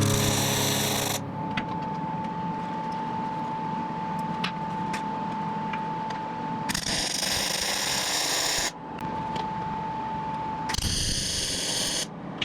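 Electric welder arc crackling in three bursts of one to two seconds as a stainless steel bar is welded on. A steady high hum and a few faint ticks sound in the pauses between bursts.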